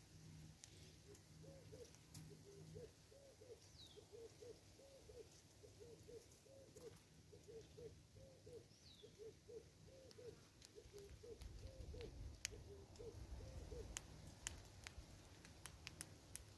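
Faint bird calls: a long run of low hoots, about three a second, and a thin falling whistle every five seconds or so. A few sharp ticks come near the end.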